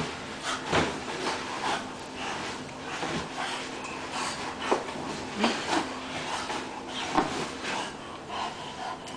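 A bulldog's breath snuffling in short, irregular bursts as she presses her face into a vinyl beach ball and pushes it along. The ball rubs and bumps against her muzzle.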